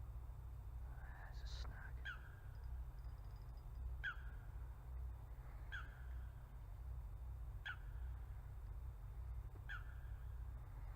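A bird calling repeatedly: a short, falling call about every two seconds, five times, over a steady low rumble.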